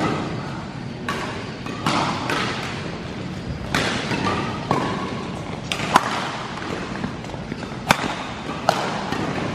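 Badminton rally: racquets striking the shuttlecock in about seven sharp, irregularly spaced hits, each ringing briefly in the large hall.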